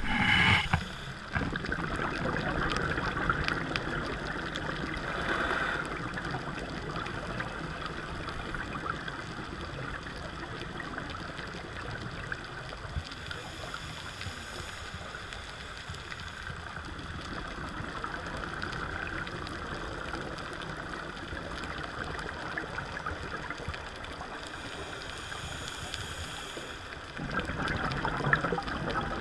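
Underwater sound on a scuba dive, heard through the camera housing: a steady hiss and crackle of the sea, with the diver's regulator breathing now and then. Bubbles rush out on each exhale, loudest near the start and again near the end.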